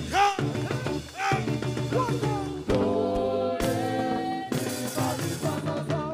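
Live gospel praise band playing, with drums and percussion under short sung vocal phrases; a long steady held tone sounds through the middle.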